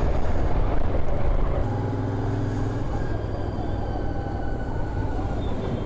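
Royal Enfield Continental GT 650's 648 cc parallel-twin engine running while riding, with road and wind noise; the engine note shifts and eases off slightly about a second and a half in.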